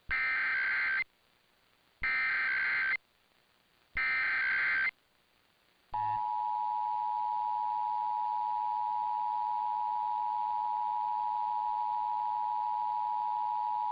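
Emergency Alert System SAME header: three bursts of warbling data tones, each about a second long with a second's gap between. About six seconds in, the steady two-tone EAS attention signal (853 and 960 Hz) starts and holds. Together they open a required monthly test.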